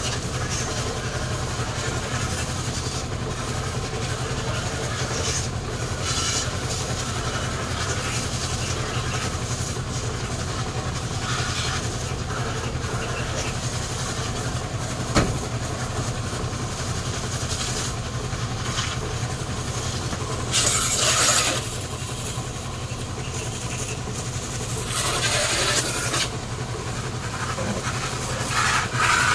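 Steady low engine rumble, with a sharp click about halfway through and a few short bursts of hissing water spray from a hose in the second half.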